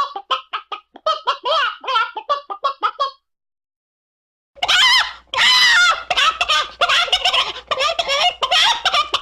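Chicken clucks and squawks: a quick run of short clucks for about three seconds, a gap of dead silence, then from about four and a half seconds in a louder, harsher run of squawking calls.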